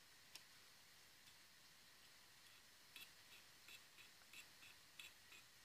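Near silence with a faint hiss: one light tick shortly after the start, then a run of light ticks, about three a second, in the second half.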